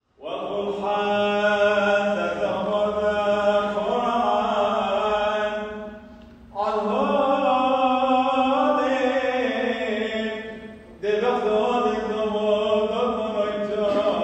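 A single voice sings slow liturgical chant: long, held notes that step up and down in pitch, in three drawn-out phrases with brief breaths about six and eleven seconds in.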